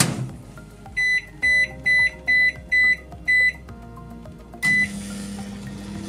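Panasonic convection microwave oven: its door shuts with a knock, six short keypad beeps follow as the cooking time is entered, then one more beep as it starts. After that comes the steady low hum of the oven running.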